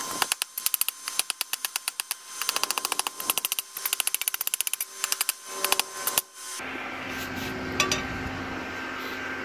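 Hand hammer striking a hot 5160 steel blade on a railroad-track anvil, quick runs of ringing blows, about four or five a second, shaping the tip. The hammering stops about six seconds in and a steady hum takes over.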